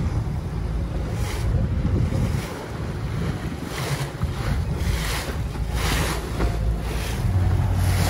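Sea water swishing and splashing past a moving boat, about once a second, over a low rumble of wind buffeting the microphone. A steady low hum comes in near the end.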